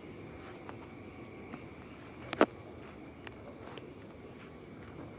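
Night insects chirring steadily in a forest, a thin high tone that cuts off about three and a half seconds in. A single sharp click or snap about halfway through, with a few fainter clicks after it.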